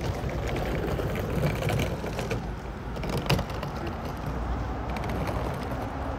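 City street ambience: a steady low traffic rumble with scattered small clicks and knocks, and one sharp knock a little past the middle.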